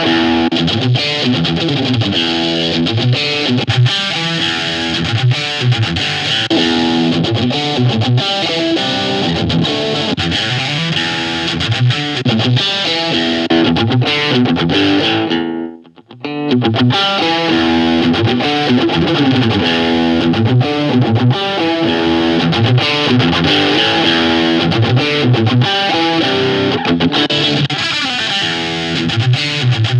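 Electric guitar played through a VOX Mini3 G2 modelling amp, a distorted tone with an effect applied. The playing stops for about a second around the middle, then picks up again.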